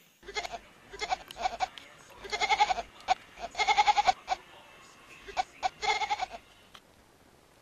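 Kitten giving a run of quavering, bleat-like cries, most of them short, with three longer ones a little over two, four and six seconds in.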